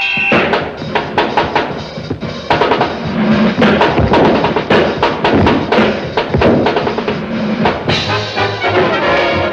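Film-musical orchestra playing a fast dance break, heavy on drums: many sharp drum and snare hits and rolls, with brass coming in near the end.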